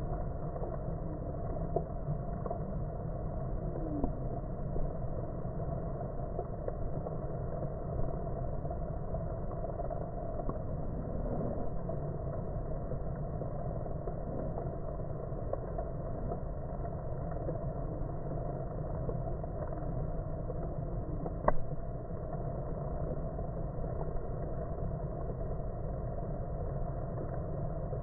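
Honeybees buzzing at a hive entrance, heard as a steady low drone, the audio slowed down with the slow-motion footage. A few faint ticks and one sharp click about 21 seconds in.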